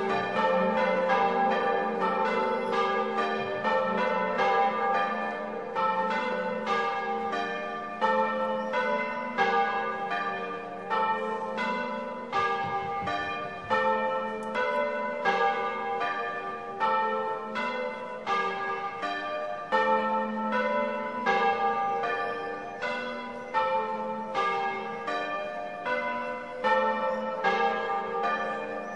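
Church bells rung in the Bolognese manner: several bells struck in quick succession at different pitches, each stroke ringing on under the next in a continuous, rhythmic peal.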